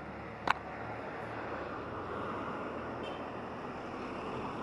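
Steady outdoor noise on a roadside, with one sharp click about half a second in.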